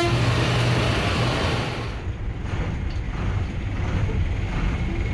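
Bus running, a steady low engine and road rumble.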